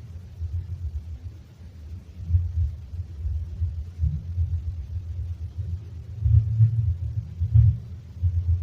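A very loud, deep rumbling noise from a played recording, swelling and fading unevenly, with its strongest swells about six to eight seconds in.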